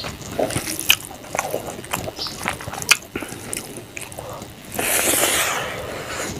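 Close-up eating sounds of fish curry and rice eaten by hand: wet chewing, lip smacks and sharp clicks. About five seconds in, a louder hiss-like noise lasts just under a second.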